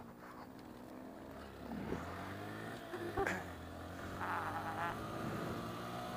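Honda Grom's 125 cc single-cylinder four-stroke engine running steadily as the bike is ridden, with a single short knock about three seconds in.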